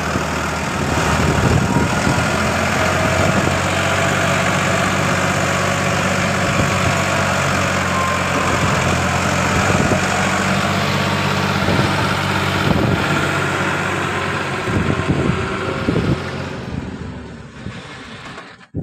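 Tractor diesel engine running steadily, straining as it hauls a loaded soil trolley, then fading out near the end.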